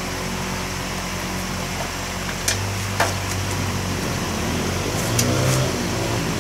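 A steady low hum with a few sharp clicks, a hand tool knocking against the motorbike's plastic body panels. About five seconds in, a short wavering tone rises over the hum.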